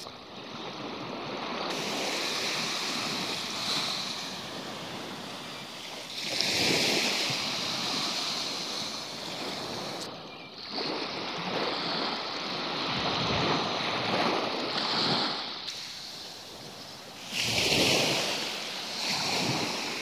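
Black Sea surf washing onto a sandy beach, swelling and fading every few seconds.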